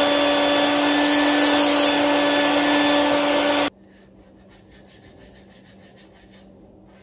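Compressed air blasting from a blow-gun nozzle on an air hose, clearing drill dust out of anchor holes in a concrete floor before adhesive anchors go in. It is a loud, steady rush with a hum under it that cuts off suddenly a little over halfway through. It is followed by faint, quick scrubbing strokes of a bottle brush in a hole.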